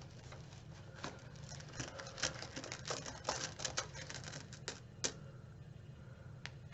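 Rune stones clicking against one another in a cloth pouch as one is drawn out, a flurry of small clicks over a few seconds, then a sharper single click near the end as the rune is set down.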